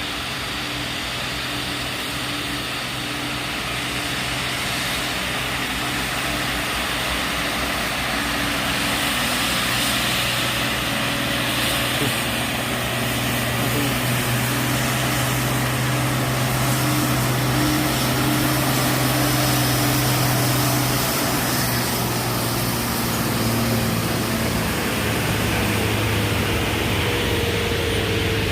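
Heavy truck engine running steadily under load, its sound slowly growing louder as it comes closer. About two-thirds of the way through, the engine note drops to a lower pitch.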